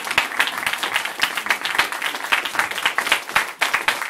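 Audience applauding: many hands clapping without a break.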